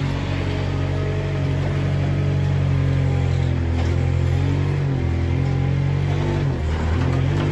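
Gehl AL440 compact wheel loader's diesel engine running under load as the machine drives and works its grab fork, the engine speed changing a couple of times.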